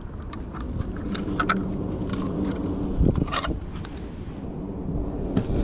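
Metal clinking and scraping in short clusters: a rusty shovel head and other scrap iron being handled and pulled off a fishing magnet. A low engine hum runs behind.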